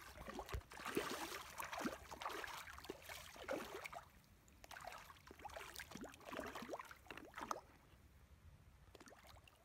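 Rainbow trout splashing at the water's surface as they take thrown food: a run of irregular small splashes and slurps that thins out near the end.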